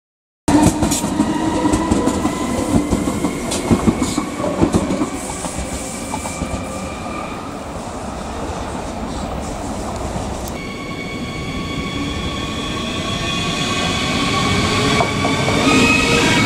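Electric S-Bahn multiple unit passing on the track, with wheel rumble and sharp clicks from the rail joints. After an abrupt change about ten seconds in, a second electric train is close by, its traction motors whining in several steady tones that rise in pitch near the end.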